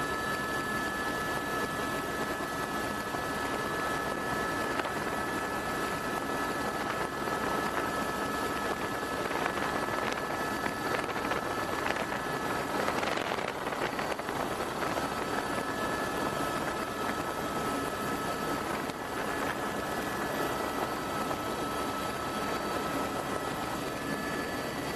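Helicopter in flight, heard from on board: a steady rush of rotor and engine noise with a few constant high whining tones. About halfway through there is a brief, louder burst of rushing noise.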